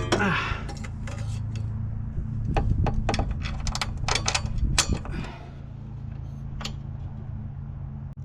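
Quick clicks and clanks of hand tools and metal hardware being handled, over a steady low hum; the clatter thins out about five seconds in.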